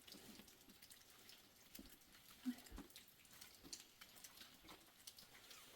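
Near silence with faint, scattered small ticks and clicks and one brief louder low knock about two and a half seconds in.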